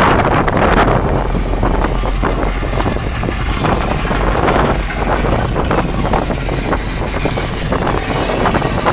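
Low, steady boat-engine rumble with wind noise on the microphone and the wash of water. The noise is louder and brighter for about the first second, then settles.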